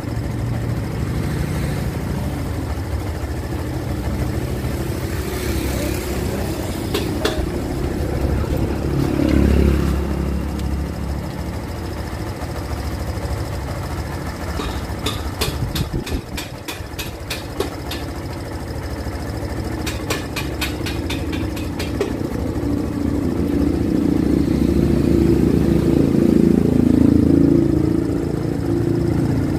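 Kawasaki Barako 2's single-cylinder four-stroke engine idling as its carburetor idle is adjusted, picking up speed briefly about ten seconds in and again for a few seconds near the end. Two runs of rapid ticking come in the middle.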